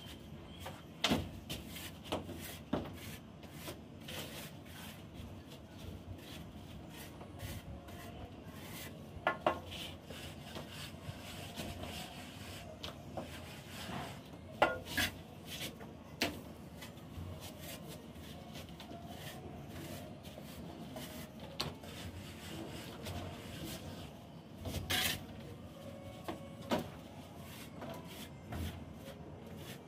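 A plasterer's hand trowel rubbing and scraping over fresh cement plaster on a ceiling as it is smoothed in the finishing stage, with scattered sharp clicks and knocks of the tool.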